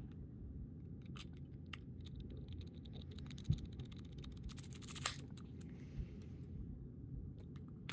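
Faint scattered small clicks and scratches of metal lockpicks being handled and worked against a lock, a few slightly louder ticks about halfway through, over a steady low hum.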